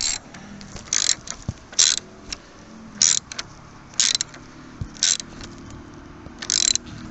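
Socket ratchet clicking in seven short bursts about a second apart, one burst on each back-swing, as it tightens the battery hold-down clamp bolt.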